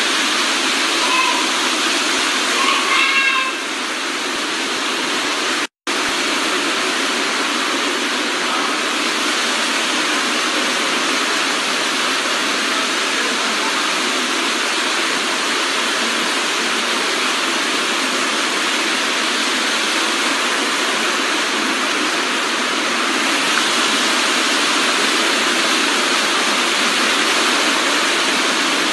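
Floodwater rushing, a loud, steady wash of noise with no let-up, broken only by a brief gap about six seconds in.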